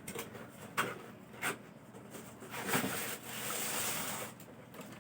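Corrugated cardboard fan carton being handled and opened: three short sharp knocks in the first second and a half, then about two seconds of scraping and rustling of cardboard and packing.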